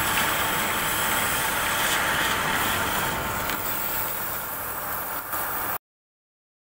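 Gas torch flame hissing steadily against the steel of an ice-plant tank during repair work; the sound cuts off suddenly about six seconds in.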